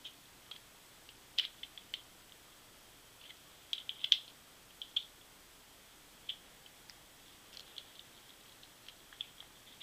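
Needle-nose pliers working the small metal tabs of a guitar potentiometer's casing as they are bent open: scattered light metallic clicks and ticks at an irregular pace, the loudest cluster about four seconds in.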